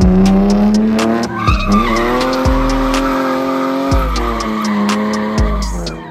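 BMW E46 330i drift car's straight-six engine revving high as the car slides sideways past, with tyre squeal. The revs climb, dip and hold, then fall near the end. Background music with a steady beat runs underneath.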